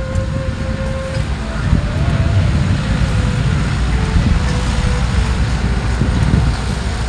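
Strong wind buffeting the microphone, a steady low rumble, with faint background music over it.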